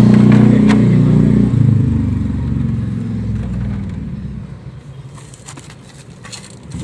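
A motor vehicle engine running, its low drone dropping about a second and a half in and then fading away over several seconds, as a passing vehicle does. A few faint clicks come near the end.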